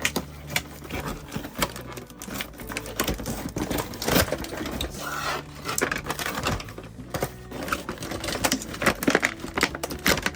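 Cardboard packaging and plastic being handled and pulled apart by hand: irregular crackling, rustling and clicking as a toy box's taped cardboard insert is worked loose.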